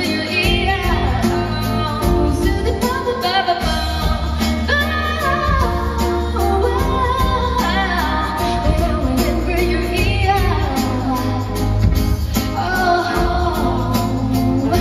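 Female singer performing a pop song live with a band, her voice carrying the melody over a strong, steady bass.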